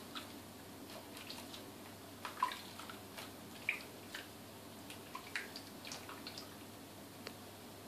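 Soapy bathwater splashing and dripping as hands scoop it over a guinea pig in a small basin: faint, irregular small splashes and drips, the loudest about two and a half and almost four seconds in.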